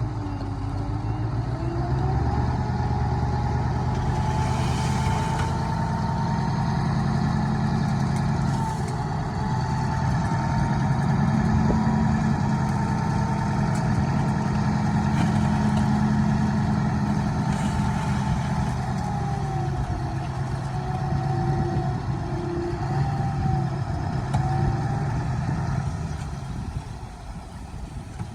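Heavy earthmoving machine's diesel engine running, with a thin whine above it that rises and falls in pitch. The sound grows quieter over the last couple of seconds.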